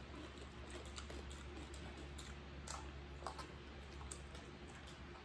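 Faint, scattered clicks and smacks of people eating at a table: chewing, mouth sounds and a utensil against a plate, over a low steady hum.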